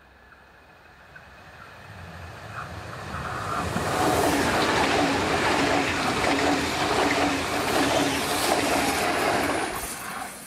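SBB RABe503 'Astoro' (ETR610) electric tilting train approaching and passing close at speed. Its wheels and rails build up over a few seconds to a loud rush with a rhythmic clatter of the wheelsets, then drop away near the end.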